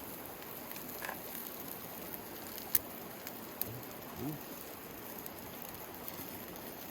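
Chicken grilling over a charcoal fire: a steady sizzling hiss with a few sharp crackles, the loudest nearly three seconds in and another a second later.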